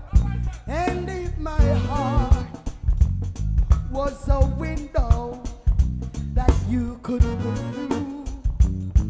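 Live band playing a reggae groove, the drum kit's hits and cymbals loud and close, with a singer's wavering melody over the beat.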